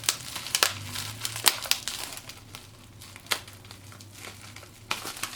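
Plastic packaging crinkling as it is handled, a run of irregular sharp crackles.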